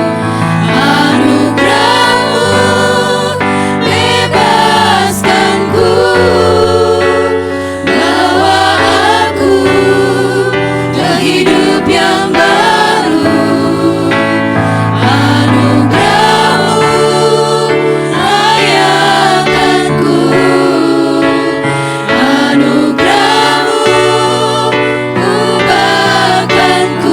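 A church choir singing an Indonesian worship song over sustained low accompanying notes.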